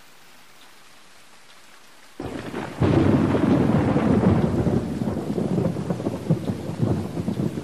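Thunderstorm: a faint hiss for the first two seconds, then heavy rain and a long rumble of thunder swell in about two to three seconds in and continue loudly.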